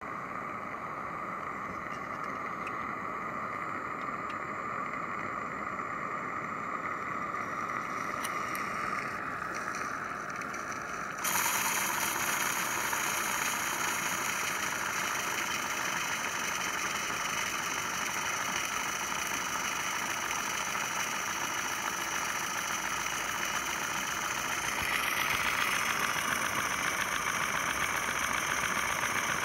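Accucraft Peckett live-steam model locomotive under steam on a test stand: a steady hiss that suddenly gets louder and fuller about eleven seconds in, and rises again about twenty-five seconds in.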